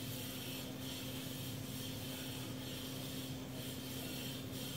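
Steady low hum and hiss of background room noise, with a few faint soft rubbing scrapes.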